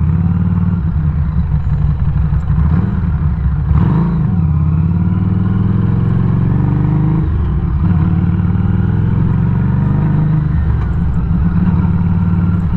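Harley-Davidson Street 500's liquid-cooled V-twin running under way, its engine note dipping and climbing again about four seconds in and shifting twice more later, as on a change of speed or gear.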